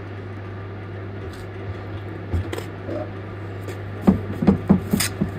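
Hand knocking on a BMW Z3's plastic side skirt: a quick run of sharp taps, about four or five a second, starting about four seconds in, over a steady low hum.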